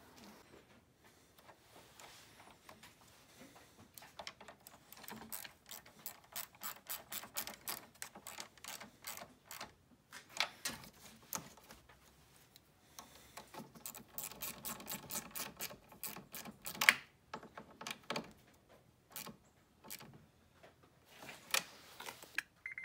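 A ratchet clicking in quick runs as a car battery terminal clamp is tightened, with a sharper knock from the tools partway through.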